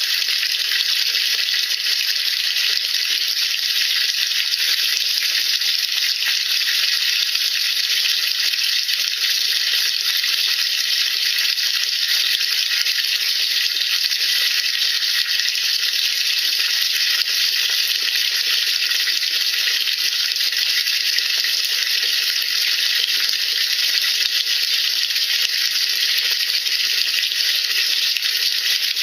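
Steady fizzing hiss of water in a washing machine tub being cleaned with sodium percarbonate, unchanging throughout.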